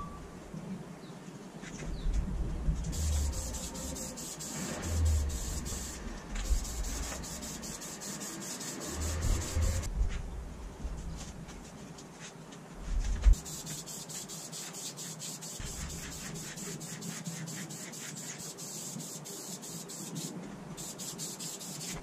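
Hands rubbing and scraping along a wooden picture frame on a worktable, in repeated strokes, with some dull handling thuds and one sharper knock about halfway through.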